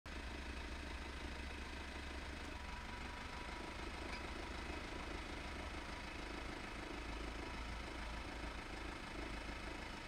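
A heavy truck's engine running steadily at low revs.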